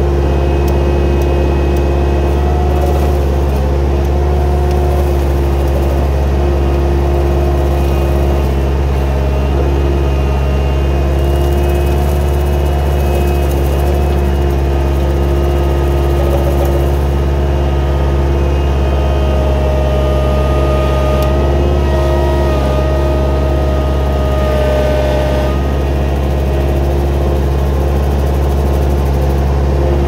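Gehl 4625SX skid steer and its hydraulic brush cutter running steadily: a constant deep engine drone with a thin whine above it that shifts slightly in pitch about two-thirds of the way through.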